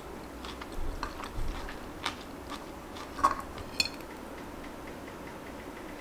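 Metal chopsticks and spoon clicking and tapping against ceramic plates and a rice bowl while eating: a handful of light, irregular taps over the first four seconds, the loudest two a little after three seconds, one with a short metallic ring, with a few dull bumps near the start.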